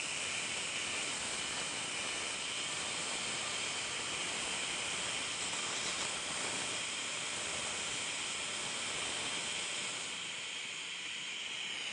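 Dental handpiece drilling a pilot hole down the tooth root for the Benex extraction screw, together with the suction tube, making a steady hiss that eases slightly near the end.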